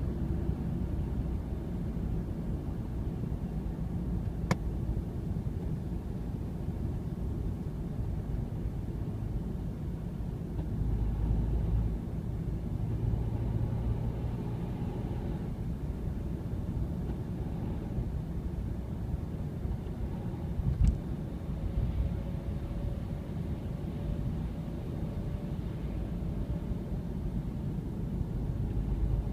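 Ford Mondeo Mk3 being driven: steady low road and engine rumble, with two sharp single clicks, one about four seconds in and one about twenty seconds in. The car has a rattle that the owner notices at around 80 km/h.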